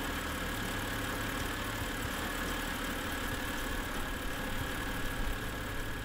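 BMW N52 inline-six engine idling steadily, running on a serpentine belt tensioner that has failed.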